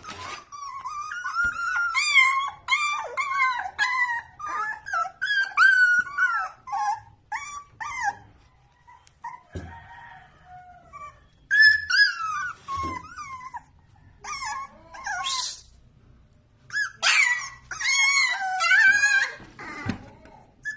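Puppies whining and yipping in a run of short, high calls that slide up and down in pitch. The calls come thick for the first eight seconds or so, thin out to a few in the middle, and pick up again near the end.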